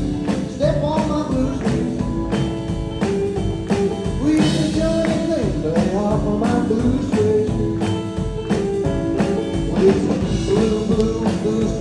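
Live rock-and-roll band playing: electric guitar over a drum kit keeping a steady beat.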